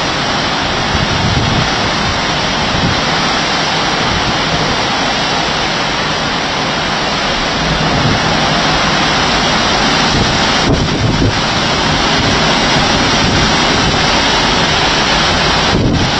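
Storm wind and torrential wind-driven rain in a thunderstorm squall: a loud, steady rush of noise, with gusts buffeting the microphone.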